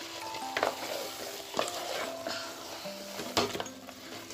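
A spoon stirring a masala paste in a metal pot while it sizzles, with sharp clinks against the pot about half a second, a second and a half and three and a half seconds in. Soft background music with held notes plays underneath.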